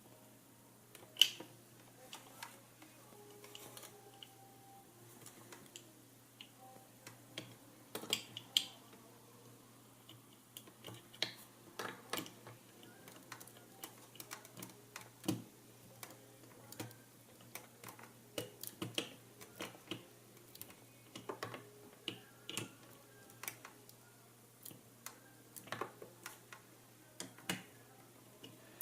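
Scattered small clicks and taps of a tool and small nuts against the metal parts of a flip clock's mechanism during reassembly, over a faint steady hum. They come at irregular intervals, the sharpest about a second in and around eight seconds in.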